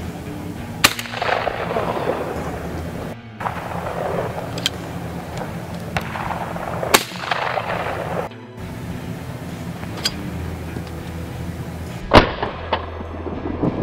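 Three shotgun shots at clay targets, about a second in, near the middle and near the end, the last the loudest, each followed by a long echo.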